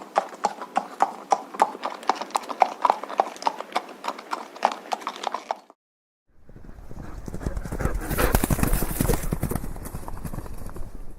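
Horse hooves clip-clopping on a hard surface in an even, steady rhythm. After a short break comes a second recording of dense, rapid hoofbeats with a low rumble, swelling and then easing off, as of a horse galloping past.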